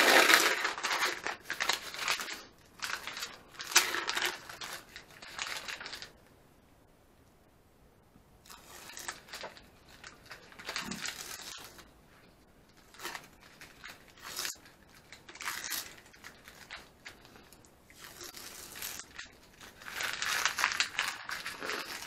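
Masking tape being peeled off a painted wheel rim and crumpled, with a paper towel rubbed over the rim: irregular bursts of tearing and crinkling, loudest at the start and again near the end, with short pauses between.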